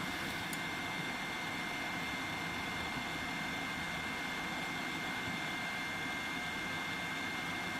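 Yihua 959D hot air rework station blowing at half air flow: a steady rush of air with a thin, high, steady whine.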